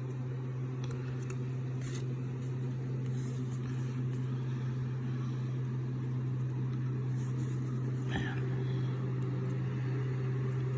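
A steady low hum, with a few faint clicks and rustles of baseball cards being handled.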